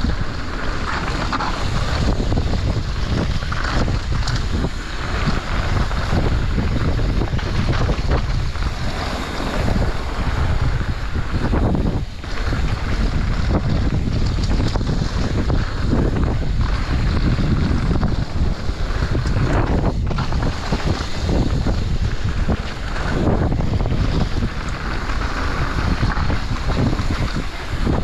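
Mountain bike descending a dirt trail at speed: heavy wind rumble on the microphone over tyre roar, with frequent small clatters from the bike rattling over bumps.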